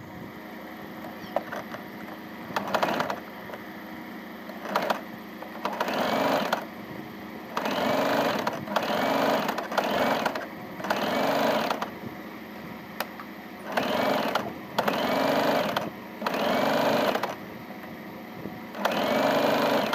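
Domestic electric sewing machine stitching in short runs: about a dozen bursts of a second or less, each starting and stopping, with brief pauses between as the fabric is guided through.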